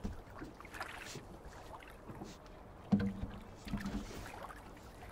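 Handling noise as an acoustic guitar is set down and a fishing rod is snatched up: light rustles and clicks, then a sharp knock about three seconds in with the guitar's strings ringing briefly, and a second, softer knock soon after.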